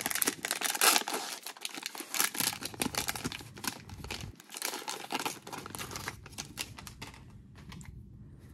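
Plastic wrapper of a 2021 Prestige Football card value pack crinkling and crackling as it is torn open by hand. The crackle thins out after about seven seconds, once the cards are being slid out.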